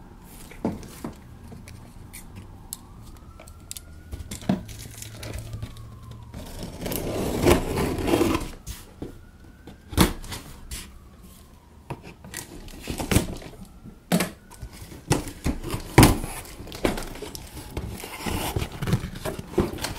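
Cardboard shipping box being opened by hand: packing tape tearing and flaps pulled open, with scattered sharp knocks of the cardboard, the loudest about halfway through and again near the end.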